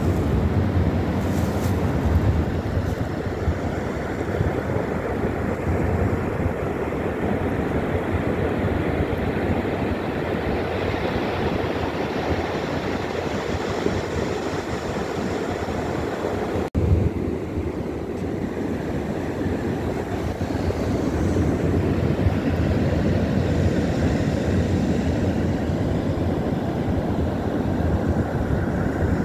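Wind buffeting a phone's microphone: a steady, heavy low rumble with no let-up, broken once by a brief dropout a little over halfway through.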